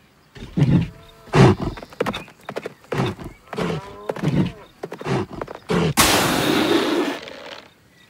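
Cartoon sound effects of a heavy bull charging: a run of deep thuds from its hooves, with animal grunts mixed in, then a loud rushing noise for about a second and a half near the end.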